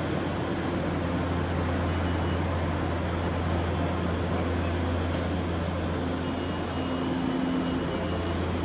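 Steady low mechanical hum with a constant rushing noise over it, as of machinery in a cable-car station. Faint higher tones come and go over the hum.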